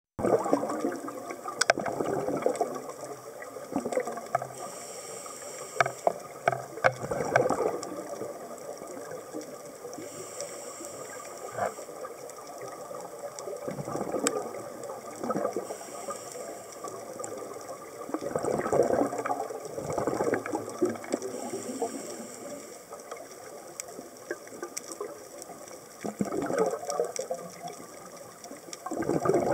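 Scuba diver breathing through a regulator underwater: exhaled bubbles rush out in bursts every few seconds, with a softer hiss of inhaling in between and scattered small clicks.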